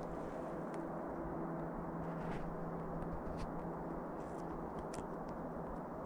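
A few soft, scattered crunches and scrapes of someone moving through snow among spruce branches, over a steady low hiss.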